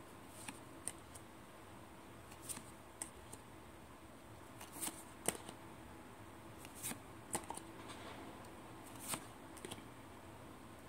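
Paper-stock tarot cards handled one at a time off the front of a deck: short, sharp card snaps and slides, unevenly spaced at roughly one a second.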